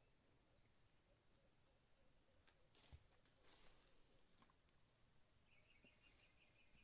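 Insects chirping in a steady, high-pitched chorus in tropical farmland, with a single sharp click about three seconds in. A faint, rapidly pulsing call joins near the end.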